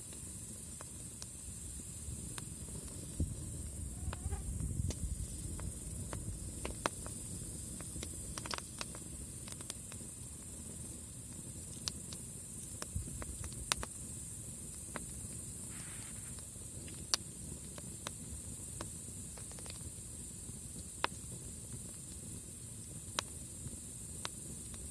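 Wood campfire crackling: scattered sharp pops at irregular intervals over a low rumble of flames that swells about four seconds in, with a steady high chorus of night insects behind.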